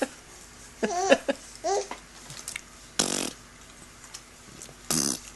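A four-month-old baby's laughing squeals, two short high-pitched sounds about a second in, followed later by two short breathy bursts about two seconds apart.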